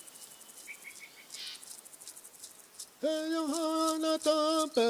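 Faint high chirps and light ticking. About three seconds in, a voice begins chanting in long held notes that dip and slide between pitches.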